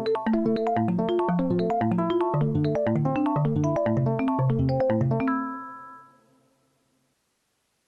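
Arturia Pigments 2 software synthesizer playing a keyboard-like preset: a quick run of short pitched notes, ending about five seconds in on a held chord that fades away to silence.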